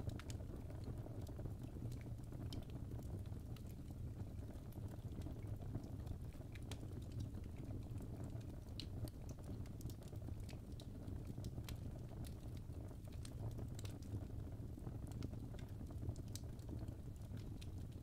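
Fireplace fire crackling: a steady low rumble of burning flames with small sharp crackles and pops scattered irregularly throughout.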